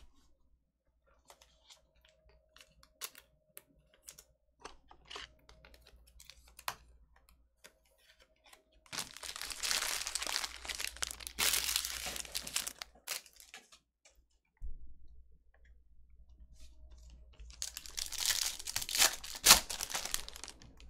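Foil trading-card pack wrappers being torn open and crinkled, in two bursts with a pause between, and light clicks of cards being handled before them.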